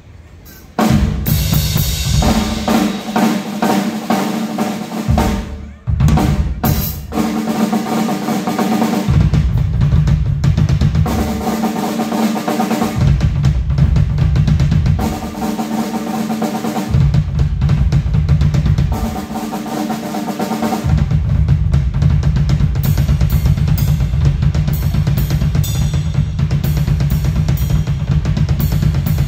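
A pdp acoustic drum kit played in a solo. It is soft for the first second, then loud, dense playing from about a second in, with bass drum and snare, dipping briefly once near the quarter mark.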